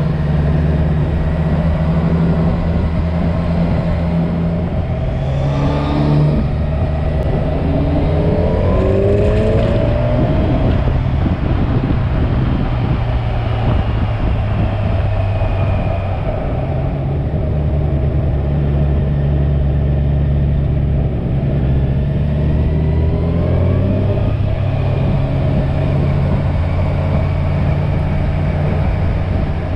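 Kawasaki inline-four motorcycle engine under way with wind rushing past. The engine note climbs under acceleration about a fifth of the way in, holds at a steady cruise, then climbs again near the end.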